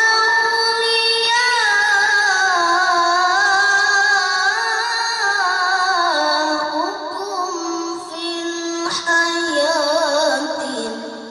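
A boy qari's voice reciting the Qur'an in melodic tilawah style, amplified through a handheld microphone. He holds long notes with wavering, ornamented pitch.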